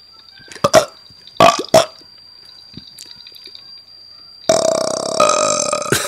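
A few short burps in the first two seconds, then a long, loud, drawn-out burp from about four and a half seconds in, played as the sound of a fish burping.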